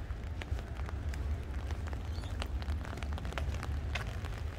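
Outdoor ambience under a steady low rumble of wind on the microphone, with many scattered short ticks and clicks.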